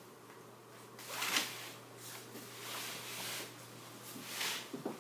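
Soft rustling handling noise close to the microphone, in three brief swells, over a faint steady low hum.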